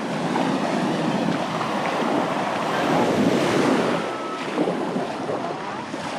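Sea surf washing onto the beach, with wind buffeting the microphone.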